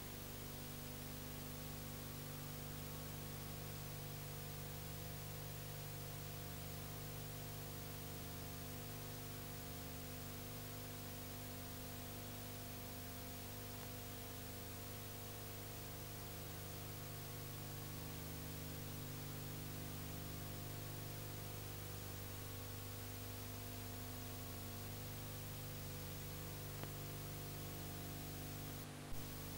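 Steady hiss and electrical hum with no other sound: the blank soundtrack of a silent home-movie transfer. A brief click comes near the end.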